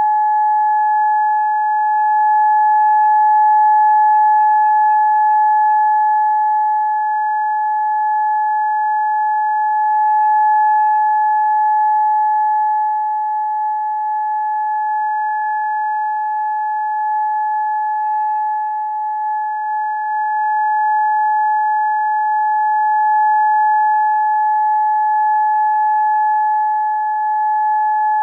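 Disaster-prevention radio siren sounding one long, steady tone with slow slight swells in loudness: the signal for a silent prayer for the war dead.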